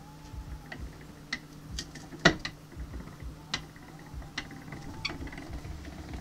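Hand-cranked vertical sausage stuffer being cranked to drive its piston plate down into the meat canister: scattered clicks and knocks from the gearing and crank, one louder knock a little over two seconds in, over a steady low hum.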